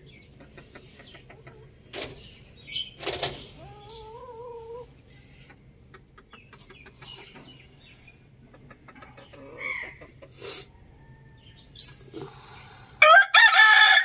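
Chickens clucking and pecking, with scattered short calls and a wavering drawn-out call about four seconds in; near the end a rooster begins a loud crow.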